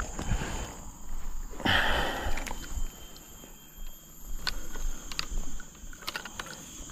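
Fishing rods and a spinning reel being handled among bankside weeds. There is a rustle of brushing through vegetation about two seconds in, then a few light clicks and knocks of rod and reel.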